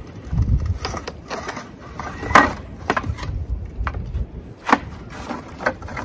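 Terracotta pots knocking and clattering as they are rattled and shifted, a run of irregular knocks with two louder clacks, one a little before halfway through and one about three-quarters through.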